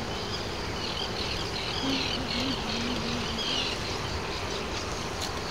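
Steady rushing noise of wind and choppy water, with faint high chirping between about one and four seconds in and a faint low wavering hum through the middle.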